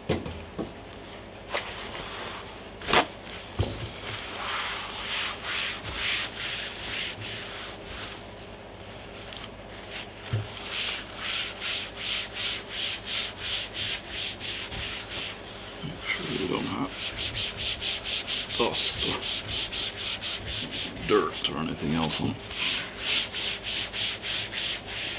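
Folded paper towel wiped back and forth across a smooth table top wet with sprayed-on cleaner: rhythmic rubbing strokes, a few per second, with a short pause about eight seconds in.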